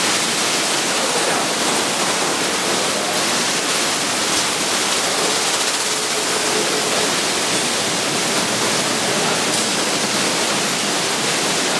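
Sino Star C7 brush car wash machine running: its rotating brushes spin against a car under water spray, making a steady rushing, water-like noise.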